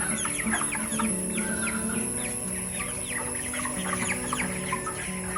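A flock of young broiler chickens peeping and clucking, many short falling peeps overlapping.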